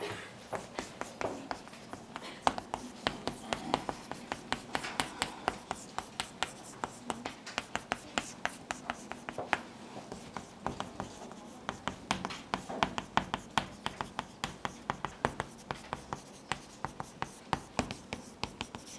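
Chalk writing on a chalkboard: a quick run of sharp taps and short scrapes, several a second, with brief pauses between the strokes and characters.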